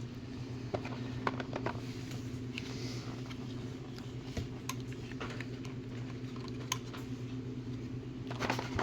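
Scattered clicks, taps and short scrapes of plastic packaging being handled and opened, over a steady low hum.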